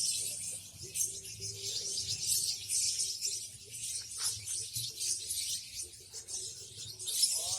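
A group of lovebirds chattering together: a dense, continuous high-pitched twittering and squeaking from many birds at once.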